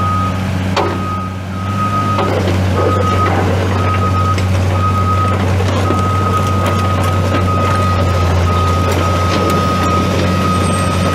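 Komatsu PC250LC-6LE excavator's six-cylinder turbo diesel running steadily while its alarm beeps in one high tone, in short beeps at first and an almost unbroken tone from about halfway. A few metallic clanks in the first few seconds.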